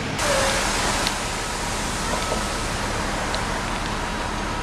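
Road traffic noise: a steady, even rush that steps up abruptly just after the start and then holds level.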